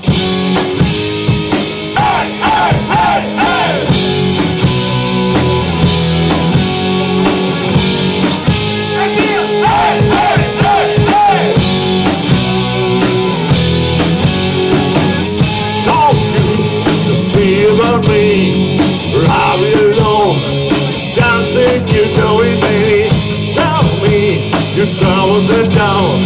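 Rock band playing live: drum kit, bass and distorted electric guitars in an instrumental passage, with a wavering lead line that bends in pitch above the chords.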